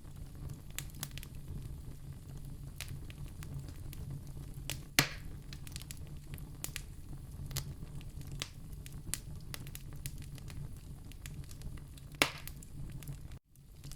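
Wood fire in a fireplace, crackling steadily over a low rumble of flames, with two loud pops about five and twelve seconds in. The sound cuts out for a moment near the end.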